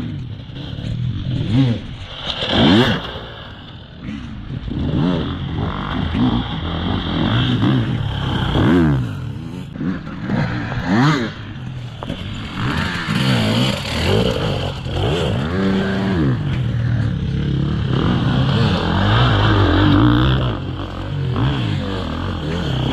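Dirt bike engines revving up and down over and over, the pitch rising and falling every second or two as the riders open and close the throttle through the track sections.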